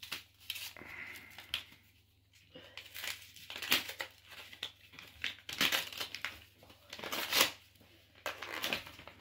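Paper and card being handled: irregular crinkling and rustling with a few louder crackles, the loudest about four and seven seconds in.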